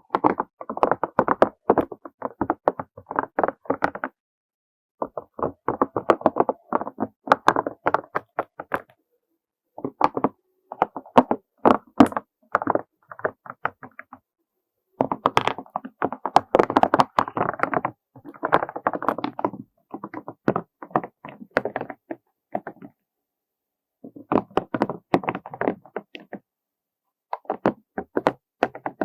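Rapid light tapping, clicking and scratching on small hard objects, in bursts of a few seconds broken by short silent pauses.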